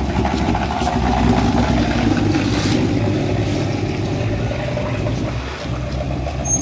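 Bicycle wheel spokes slapping an inflated balloon tied to a gear cycle, making a fast, steady putter like a Royal Enfield Bullet motorcycle's engine.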